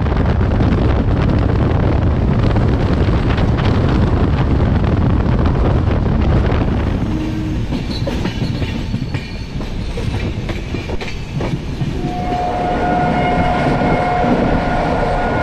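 Passenger train running along the track, heard from an open coach door: a loud steady rumble with rattling clicks of the wheels. About twelve seconds in, a train horn starts sounding one long steady note.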